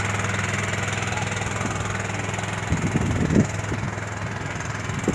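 Engine of a wooden motor-sailer boat running at a steady low chug as it passes close by, with a few low bumps about three seconds in.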